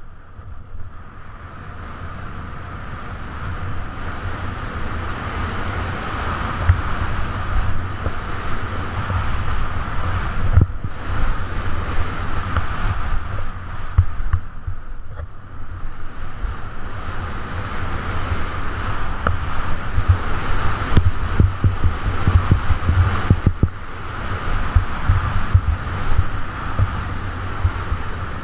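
Wind buffeting the microphone of a first-person camera on a skier going fast downhill, a heavy rumble with constant thumps, over the hiss of skis running through loose powder snow. It builds over the first few seconds as speed picks up, with a few brief dips.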